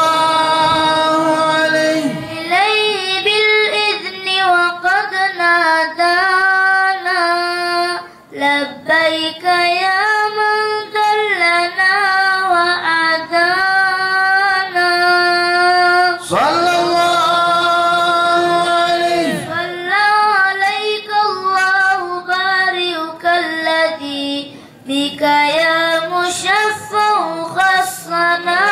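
A boy chanting an Arabic devotional poem in praise of the Prophet solo into a microphone, in a slow, ornamented melody with wavering held notes and short breaths between phrases. One long held note comes a little past halfway.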